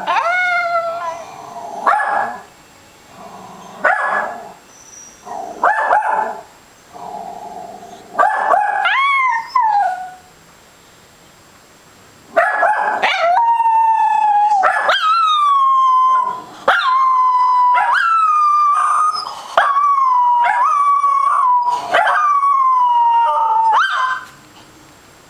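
Scottish terrier howling: in the second half, long drawn-out notes that each slide down in pitch, one after another with only brief breaks. In the first half, short barks and yelps come about every two seconds.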